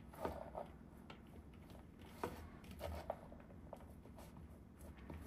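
Hands mixing shredded red cabbage and carrot in a plastic bowl: soft rustling with a few light clicks scattered through.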